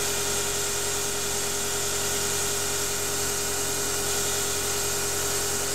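Half-horsepower CNC mini lathe running steadily through a fine final boring cut in 6061 aluminium at 0.05 mm per revolution: an even hum with a constant whine.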